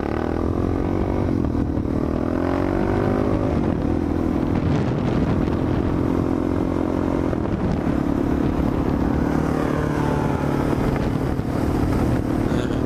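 Suzuki DR-Z400SM supermoto's single-cylinder four-stroke engine under way, rising in pitch for the first few seconds as it accelerates, then holding steady at cruising speed with a brief dip about eight seconds in, over wind noise on the helmet microphone.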